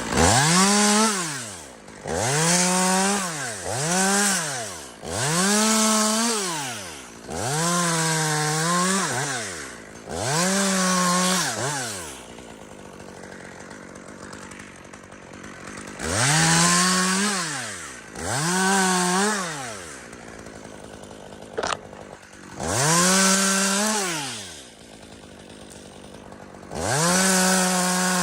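Chainsaw revved to full throttle in about nine bursts of one to two seconds, each rising to a steady high pitch and falling back to idle in between, with a longer idle in the middle. There is one sharp click in the later lull.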